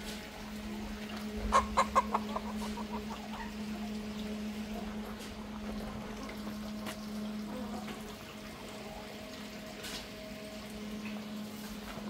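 Chickens clucking: a quick run of clucks about a second and a half in, then softer scattered clucks. A steady low hum runs underneath.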